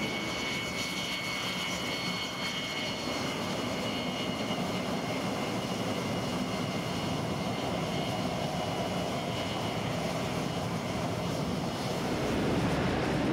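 EA-6B Prowler's twin J52 turbojet engines running, a steady jet roar with high-pitched turbine whine tones over it. The whine fades about ten seconds in, and the roar grows a little louder near the end.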